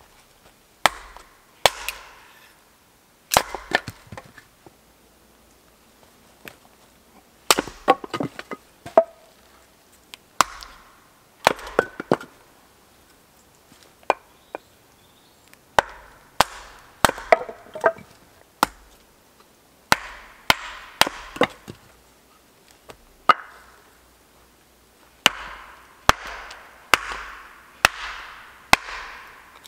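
Hatchet chopping a thin bark-covered wooden pole on a chopping block: sharp chops at an uneven pace, in clusters with short pauses, several followed by a brief crackle of the wood splitting.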